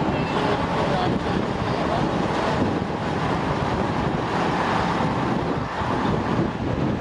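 Steady wind noise rumbling on the microphone over a vehicle running underneath, with the chatter of a busy crowd in the background.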